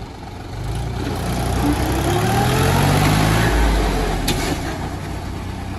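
Tractor diesel engine revving up under heavy load, rising in pitch and loudness for about three seconds and then dropping back. It is a tractor pulling a second tractor out of deep mud by a chain.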